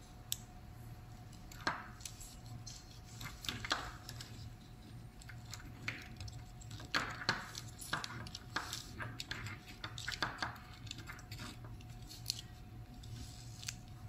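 Irregular small clicks, scrapes and rustles of hands handling wires and pushing plastic connectors together on an electric scooter's controller board, over a steady low hum.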